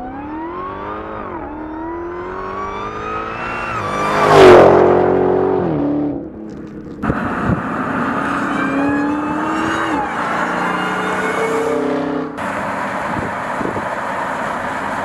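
Dodge Charger SRT Hellcat's supercharged 6.2-liter HEMI V8 accelerating hard, its pitch climbing through an upshift to a loud pass-by about four and a half seconds in, where the pitch drops as the car goes past. After that come a few edited-together stretches of the V8 running and revving.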